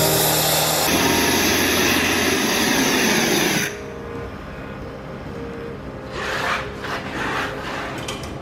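Gas torch hissing loudly as it heats the soldered tank seam of a truck radiator, cutting off suddenly about three and a half seconds in. Softer rustling noises follow.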